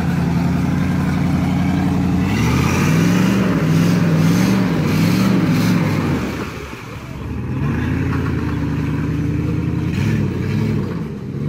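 A 4x4 off-road vehicle's engine running, steady at first, then revved up and down in repeated rising and falling swells from about two seconds in; it eases off briefly past the middle and then revs in swells again.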